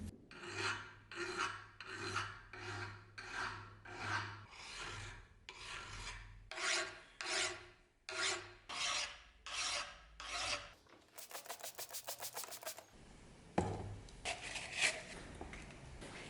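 Hand file rasping across the steel of an axe head in even strokes, about one and a half a second, to correct its shape. About two-thirds through there is a short quick run of rapid small strokes before the slower strokes resume.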